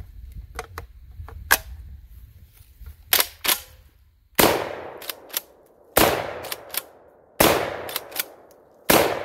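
A 12-gauge pump-action bullpup shotgun (Black Aces Tactical Bullpup Pump) fires four shots, about one and a half seconds apart. Each shot is followed by a quick double clack of the spring-assisted pump being worked. A few lighter handling clicks come before the first shot.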